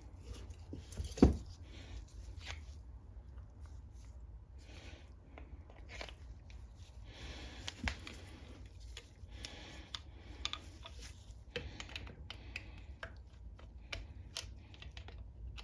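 Hands handling small engine parts and tools: scattered light clicks, taps and rustling, with one sharper knock about a second in.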